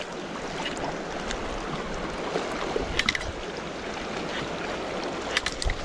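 Sea water lapping and washing against shoreline rocks, a steady wash, with a few short clicks about three seconds in and again near the end.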